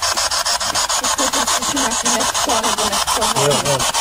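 Spirit box (ghost box) radio sweeping through stations: harsh static chopped about nine times a second, with brief broken snatches of voice-like radio sound from about a second in until near the end.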